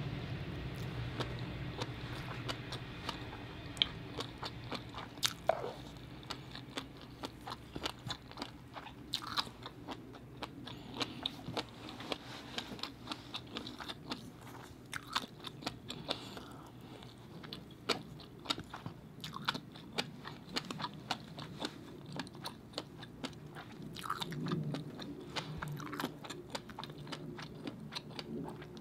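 Close-up chewing of butter-cooked abalone: wet mouth sounds with many small sharp clicks and smacks, going on steadily.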